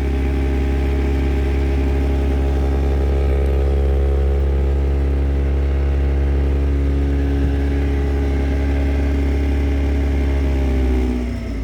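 1991 Mazda MX-5's 1.6-litre four-cylinder engine held steady at about 2000 RPM, with a really loud, annoying rattle from under the dashboard. The rattle is a coolant line vibrating against the line next to it behind the dash. The revs drop back about eleven seconds in.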